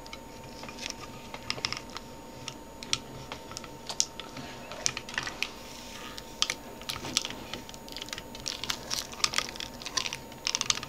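Irregular small clicks and crackles of a knife blade cutting and peeling clear protective plastic film off a die-cast model excavator, some clicks coming in quick clusters.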